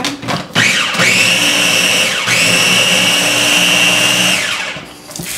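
Ninja press-top chopper's motor whirring as it blends cornbread batter. It spins up about half a second in, dips briefly and picks up again a couple of seconds later as the top is let up and pressed again, then winds down near the end.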